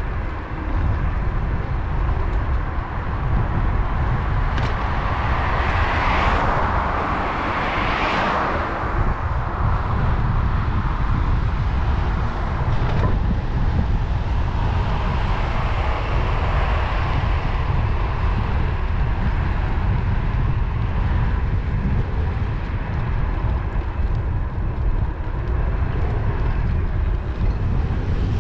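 Wind buffeting the microphone of a camera moving along on a bicycle, a steady low rumble. Two vehicles pass on the adjacent road about six and eight seconds in, each a swelling whoosh that fades, with a fainter one a few seconds later.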